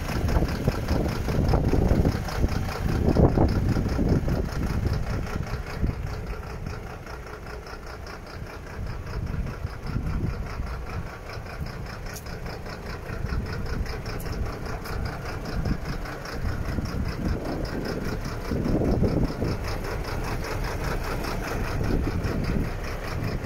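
1996 MAN truck's diesel engine idling steadily, louder in the first few seconds.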